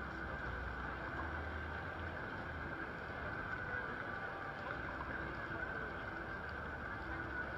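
Steady street ambience of a busy pedestrian crossing in the rain: an even wash of noise from the crowd and wet streets, with a low rumble of traffic that comes and goes.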